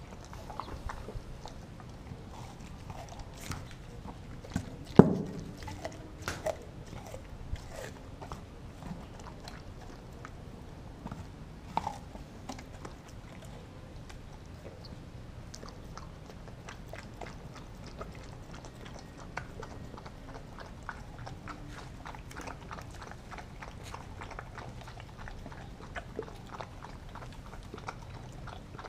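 A German Shepherd–Kelpie cross dog chomping on frozen raw turkey thigh steaks, with repeated crunching, biting and licking. A few louder knocks against its stainless steel bowl come through, the loudest about five seconds in, briefly ringing.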